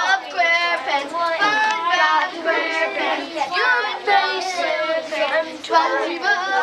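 Many children's voices at once, talking and calling out over one another without a break.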